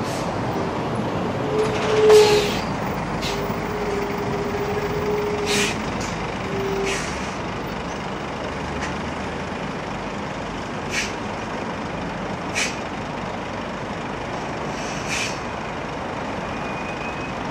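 Heavy lorries and cars moving slowly past on a busy road: a Scania truck with a tipper trailer, then a Tesco lorry, over a steady traffic rumble. Short air-brake hisses come again and again, the loudest about two seconds in.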